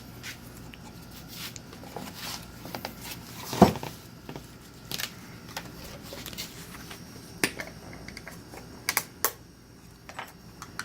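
Scattered light clicks and taps of the new oil filter and parts being handled while its rubber rim is oiled, with one louder knock about three and a half seconds in, over a faint steady hum.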